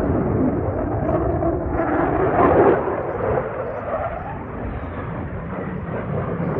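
Jet roar from a RAAF F-35A's single afterburning turbofan engine as the fighter flies its display. It is a loud, rumbling noise that swells to a peak about two and a half seconds in and then eases a little.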